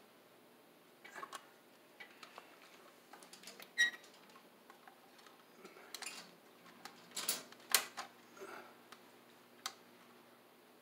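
Screwdriver clicking and scraping on the terminal screws and metal housing of a boiler control box as wires are fastened: irregular small clicks and scratches, with a few sharper clicks about four seconds in and again around seven to eight seconds in.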